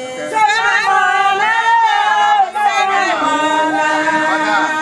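A group of women singing together unaccompanied, several voices overlapping in long held and sliding notes.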